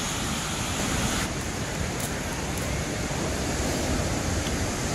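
Ocean surf washing steadily onto the beach, with wind.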